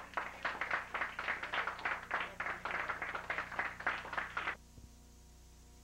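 Small audience clapping, quick distinct claps that cut off suddenly about four and a half seconds in, leaving a low steady electrical hum and hiss.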